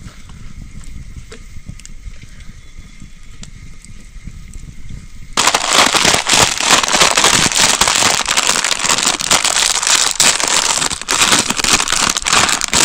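Food frying in hot oil in a pan: a loud, dense sizzling crackle that starts suddenly about five seconds in, after a quieter stretch of low rumble and faint clicks.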